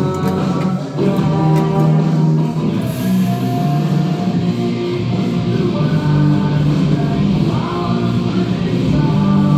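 Rock music with electric guitar and singing, played over a radio.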